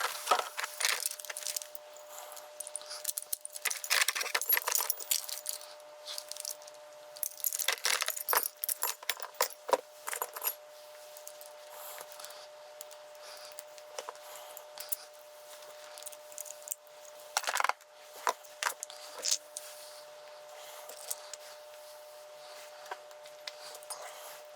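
Keys and small metal lock parts clinking and clicking as they are handled, in a dense clatter for the first several seconds, then as scattered single clicks, over a faint steady hum.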